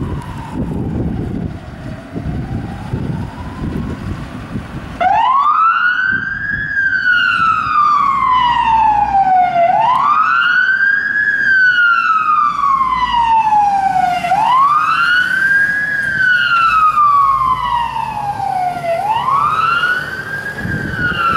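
Fire engine siren on a wail. For the first five seconds there is a fainter wail over low engine rumble. Then a loud siren cuts in, sweeping quickly up in pitch and slowly back down, about once every four and a half seconds.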